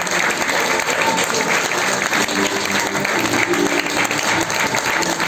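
Theatre audience applauding steadily at curtain calls, a dense continuous clapping with faint voices underneath.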